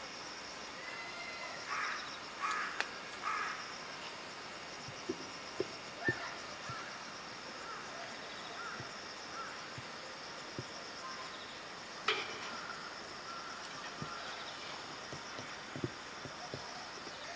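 Outdoor ambience: a steady high buzz, with a few short harsh calls about two to three seconds in, scattered faint knocks, and a sharp click about twelve seconds in.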